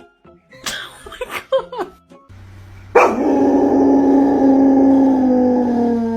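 A dog vocalizing: a few short yips and whines, then about three seconds in one long, loud howl whose pitch slowly falls.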